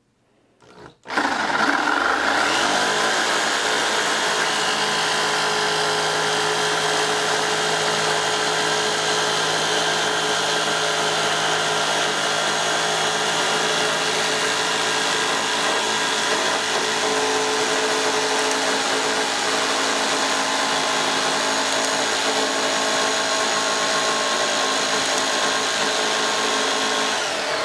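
Jigsaw starting about a second in and running steadily as its blade cuts through plywood.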